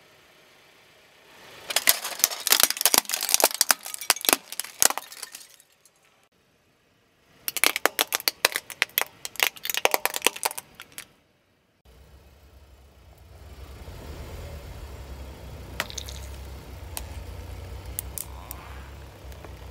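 Hard plastic toys cracking and crunching under a car tyre, in two long bursts of sharp crackles. About twelve seconds in, a car engine's low hum takes over, with a few scattered clicks.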